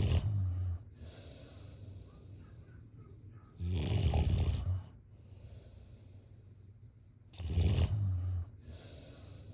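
A sleeping person snoring: three loud, rasping, low snores about four seconds apart, with a softer breathing hiss between them.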